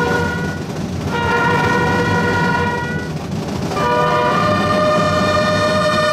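Brass band holding three long chords of about two seconds each with short breaks between, the third on different notes from the first two.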